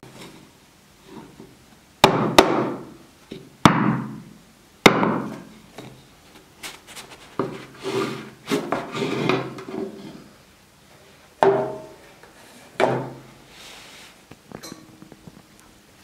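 A loaf pan knocked sharply against a wooden cutting board several times to turn out a freshly baked loaf. The knocks are followed by rubbing and scraping as the pan is worked off the bread, then two more knocks.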